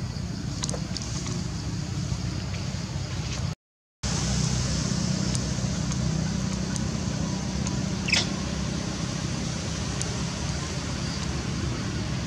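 Steady outdoor background hiss with a low hum, broken by a brief dropout a few seconds in. About eight seconds in comes one short high squeak from a young macaque.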